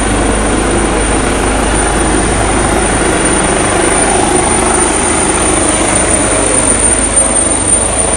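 Westpac Rescue helicopter, an AgustaWestland AW139, flying low and coming in to land: a loud, steady rotor and turbine drone with deep rotor beating underneath.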